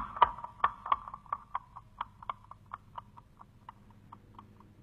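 Horse's hooves clopping in an even beat, about four strikes a second, fading steadily away until they stop shortly before the end: a radio-drama sound effect.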